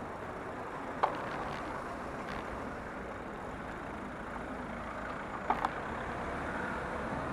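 Steady road-traffic noise from the cars around the bicycle, with one sharp click about a second in and a few quick clicks about five and a half seconds in.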